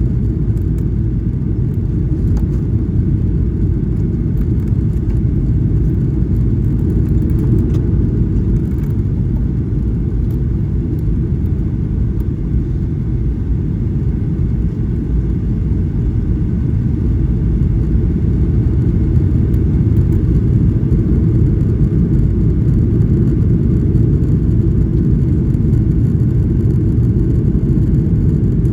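Steady low rumble of cabin noise inside a Boeing 737-800, from its engines and airflow, growing slightly louder a little past the middle.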